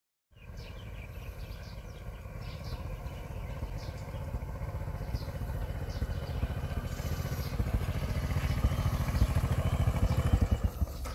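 Small motor scooter engine running as the scooter rides up and stops close by, growing louder as it nears.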